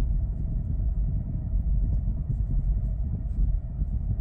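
Car engine and tyres rolling, heard from inside the cabin as a steady low rumble. The engine holds a high idle of about 1,000 RPM with no foot on the gas and won't settle down, so there is no engine braking: an idle-control fault.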